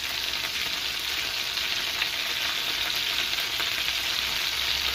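Butterflied quail frying in butter in a cast-iron skillet: a steady sizzle.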